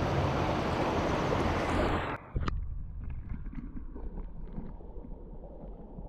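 Creek water running at a camera held at the water's surface, a steady rushing noise. About two seconds in, the microphone goes under the water and the sound turns suddenly muffled and quieter: a low underwater rumble with scattered faint clicks.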